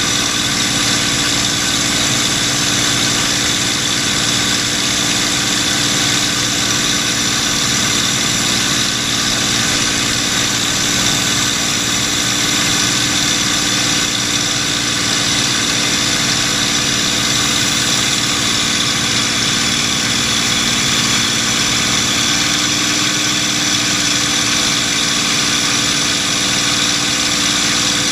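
P-51D Mustang's Packard Merlin V-12 engine and propeller heard from inside the cockpit in steady cruise flight: an even, unchanging drone with a hiss over it.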